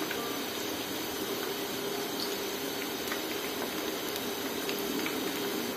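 Pakoras (gram-flour batter fritters) deep-frying in hot oil in a pan: a steady sizzle with a few faint crackles.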